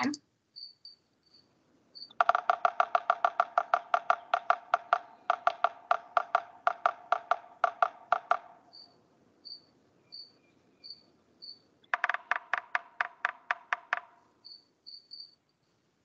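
Recorded drumming of a yellow-bellied sapsucker: a run of sharp taps that starts quickly, then slows and stutters unevenly, with a short break partway through. It lasts about six seconds, and a second shorter bout of about two seconds follows after a pause.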